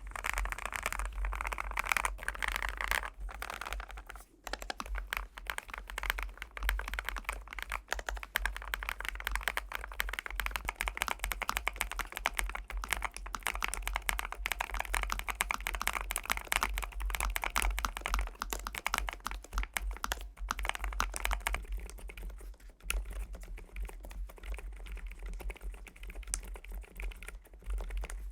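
Continuous fast typing on a Lofree Flow2 aluminium-bodied mechanical keyboard: a rapid stream of key clacks that gets somewhat softer for the last several seconds. A low steady hum runs underneath.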